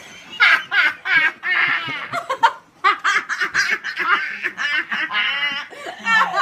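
A girl and a woman laughing hard together, in many short bursts of laughter.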